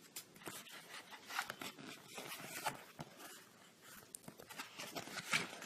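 Faint rustling and clicking handling noises, a scatter of short ticks and scrapes.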